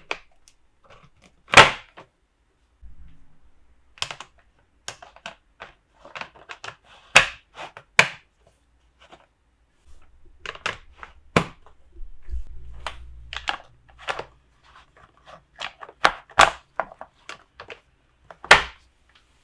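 Small plastic toy pieces being handled, tapped and set down on a hard surface: irregular clicks and knocks, loudest about one and a half seconds in, around seven to eight seconds in and near the end, with a low rumble of handling in the middle.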